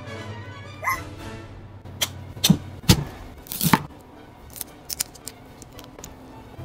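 Kitchen knife cutting through raw oniebi shrimp on a cutting board: a handful of sharp cuts and knocks, the loudest in a quick run between about two and four seconds in, then a few lighter taps, over background music.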